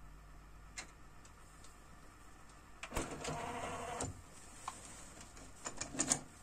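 Harman Kardon TD 420 cassette deck's door opening: a sharp click about three seconds in and about a second of mechanical whir. Near the end come a few light clicks and clacks as the cassette is handled in the open door.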